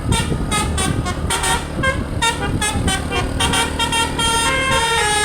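A tour bus's 'telolet basuri' musical air horn (a DAV musical airhorn) playing a quick tune of notes that change every fraction of a second, over the low rumble of the vehicle's engine.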